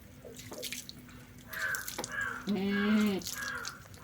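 Repeated squirts and drips of liquid into a container, with a goat bleating once about two and a half seconds in.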